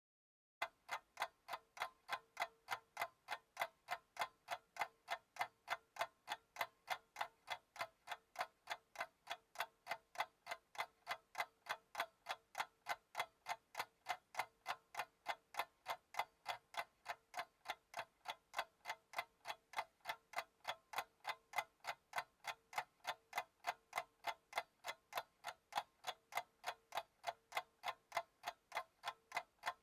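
Clock ticking evenly, about three ticks a second, starting just after a brief moment of silence.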